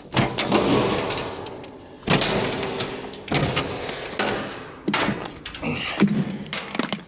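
Thumps and rattles from handling a steel corn bin, about five heavy knocks, each trailing off over about a second.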